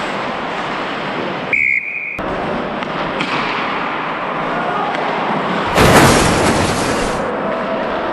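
Ice hockey play heard from a skating referee's helmet camera: skate blades scraping and carving on the ice under a constant rush of air noise, with scattered stick and puck knocks. A brief high tone sounds about one and a half seconds in, and a loud scraping rush about six seconds in is the loudest moment.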